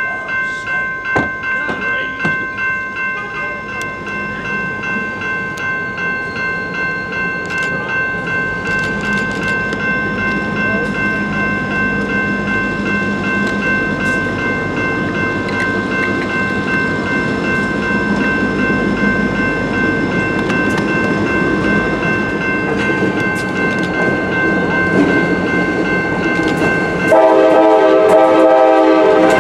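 Grade-crossing bell ringing steadily while a CSX diesel locomotive approaches, its engine rumble growing louder. Near the end the locomotive's air horn sounds loudly and holds.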